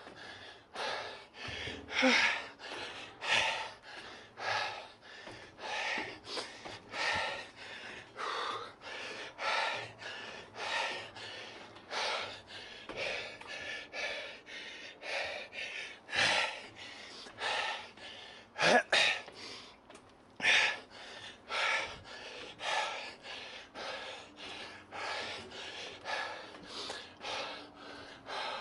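A man breathing hard and fast, panting in and out about once a second, winded from climbing a long, steep staircase.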